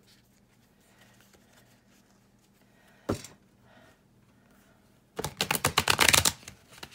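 A stiff, not-yet-broken-in tarot deck being shuffled: one knock of the deck about three seconds in, then a fast run of card flicks lasting about a second near the end.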